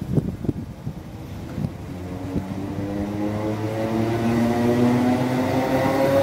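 London Overground Class 317 electric multiple unit pulling away, its traction motors whining steadily higher in pitch and growing louder as it gathers speed. Gusts of wind buffet the microphone in the first second.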